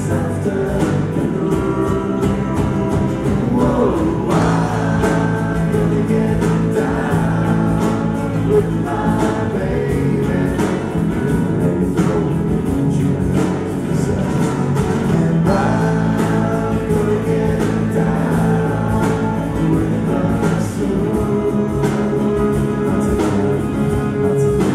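Live band music: singing over an acoustic guitar and a drum kit, with a steady beat.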